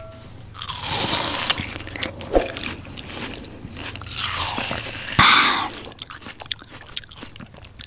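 A person slurping instant noodles in chicken soup and chewing them wetly, with a loud slurp about five seconds in.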